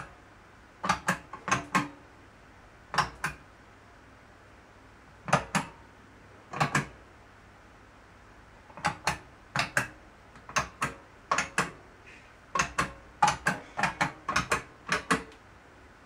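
Large illuminated square arcade-style push buttons on a metal puzzle panel being pressed one after another. Each press gives a sharp plastic click, often two close together. The clicks come in irregular runs, denser in the second half.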